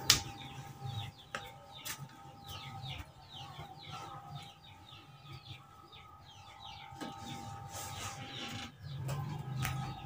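Faint chirping of birds: many short, quick calls one after another, over a faint steady hum.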